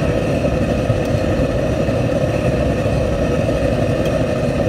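Steady loud roar of commercial kitchen equipment, the running gas range and its extraction, with a strong even hum in it and a faint click or two.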